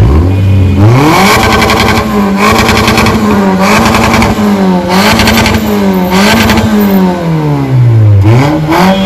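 Toyota Premio's four-cylinder engine revving through a custom-built exhaust. The note climbs steeply about a second in and is held high with small dips and a raspy edge at the peaks. It falls away about eight seconds in and climbs again near the end.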